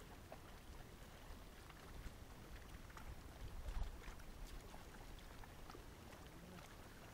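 Faint low rumble of wind buffeting the microphone, with a brief louder bump about four seconds in.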